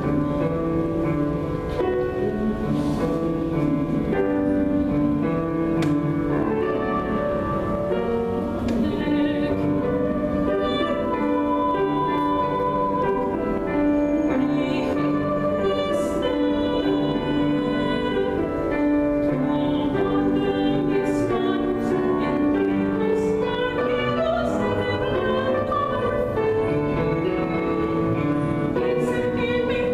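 Mezzo-soprano singing in classical operatic style, accompanied by a grand piano.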